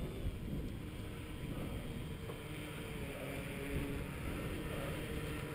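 Small 450-size electric motor of an E-flite Mini Pulse XT RC plane running steadily as the plane taxis across the grass, under a low rumble of wind on the microphone.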